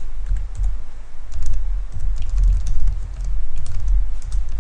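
Typing on a computer keyboard: a quick, irregular run of key clicks over a strong low rumble.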